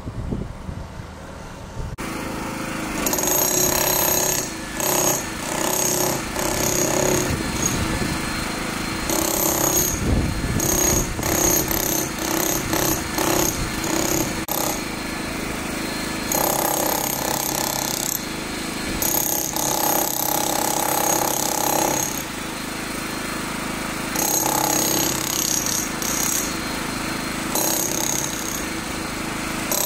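Handheld electric demolition hammer driving a chisel bit into a concrete slab, chipping out a hole. It runs in spells with short pauses and starts a couple of seconds in.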